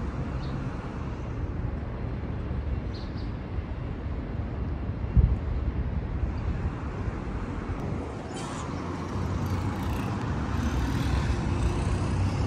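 Road traffic on a wide city road: a steady low rumble of cars running past, with one brief thump about five seconds in and the traffic growing a little louder in the second half.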